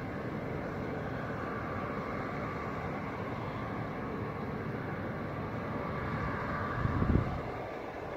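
Distant dredger engine running, a steady drone with a faint steady hum through it. About seven seconds in, a short louder low rumble rises over it and fades.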